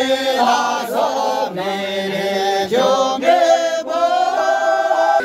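A group of men singing together in a chant-like style, holding long notes that step up and down in pitch.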